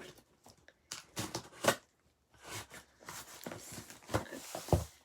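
A cardboard shipping box being opened by hand: a few knocks and crinkles, then a longer stretch of tearing and scraping from about three seconds in.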